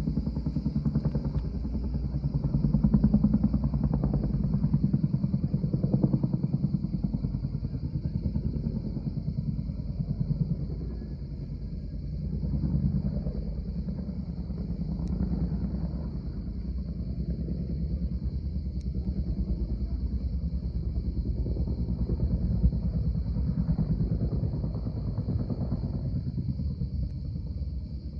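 A vehicle's engine running as it drives, its level swelling and easing, over a steady high-pitched buzz.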